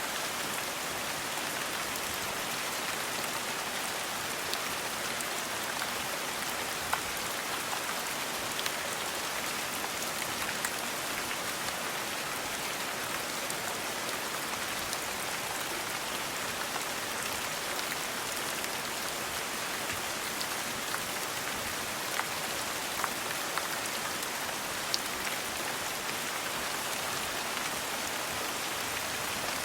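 Steady rain falling on a surface, a constant hiss with scattered individual drop ticks.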